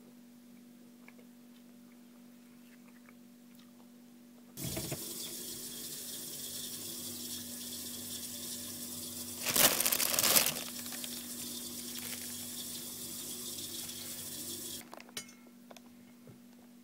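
Water running from a tap: it comes on suddenly about four and a half seconds in as a steady rush and shuts off near the end, with a louder, splashier stretch of about a second in the middle.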